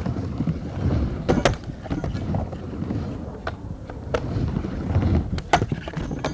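Skateboard wheels rolling with a low rumble, broken by several sharp clacks of the board striking the ramp.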